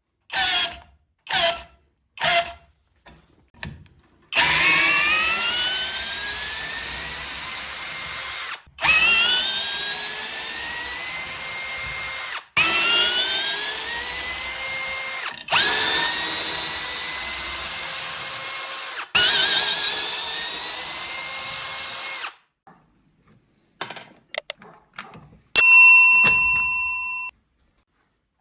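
Parkside Performance PBSPA 12 E4 12 V cordless drill motor and gearbox whirring. It starts with a few brief trigger blips, then runs five times for three to four seconds each, each run rising in pitch as it spins up and then holding steady before cutting off. Near the end come a few small clicks and a loud steady electronic-sounding tone.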